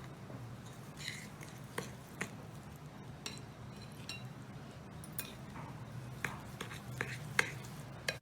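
Spoon stirring a stiff mix of powdered sugar, milk powder, cocoa and coconut oil in a bowl, with light irregular clinks of the spoon against the bowl over a faint low hum.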